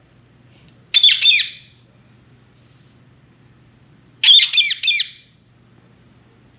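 Indian ringneck parakeet squawking: two loud bursts of harsh, rapid high-pitched calls, the first about a second in and a longer one about four seconds in.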